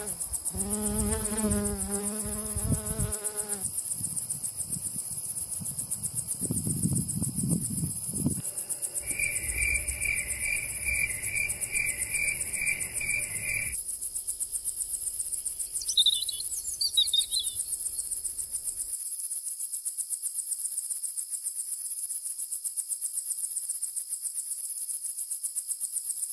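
A continuous high, fast-pulsing insect trill, with a bumblebee buzzing low and steady over it for the first few seconds. Later come a run of evenly spaced chirps, about two a second, and then a couple of short chirps.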